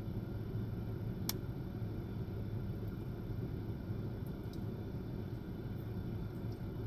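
Steady low rumble of background noise, with one sharp click about a second in and a couple of faint ticks later.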